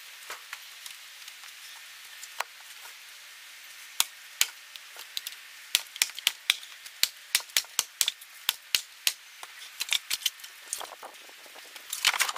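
Firewood being handled, with sharp wooden knocks. A few come at first, then a quick run of two or three a second through the middle, and a denser clatter near the end.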